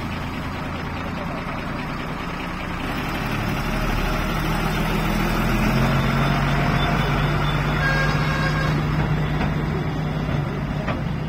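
Dump truck's diesel engine pulling away and driving off, a steady low engine hum whose note rises and grows louder about four seconds in, then holds.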